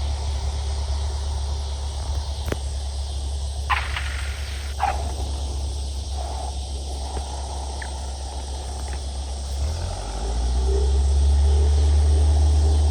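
Cessna 172's four-cylinder engine heard from the cockpit, running at low power through the touchdown and rollout, with a few short sharp knocks and squeaks between about two and five seconds in as the wheels meet the runway. About ten seconds in the engine is brought up to full power and runs louder and steady for the takeoff of a touch-and-go.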